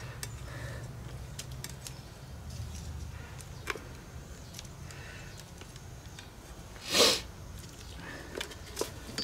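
Small clicks and taps of battery cable connectors and wires being handled at the terminals of a mobility scooter's 12-volt batteries, over a low hum. About seven seconds in there is one short, loud rush of noise.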